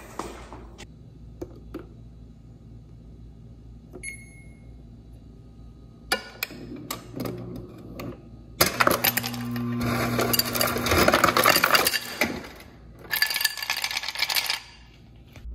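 Hard objects clinking and rattling in quick, dense bursts, loudest from about nine to twelve seconds in and again briefly near the end, with scattered clicks and a short high beep about four seconds in.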